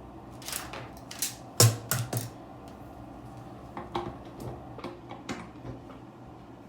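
Small hard objects being handled, giving a string of sharp clicks and taps: a cluster in the first two seconds with the loudest about a second and a half in, then a few lighter taps later.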